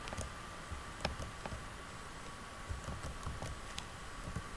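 Computer keyboard keys pressed sparingly: several soft, separate clicks scattered irregularly, over a faint steady tone.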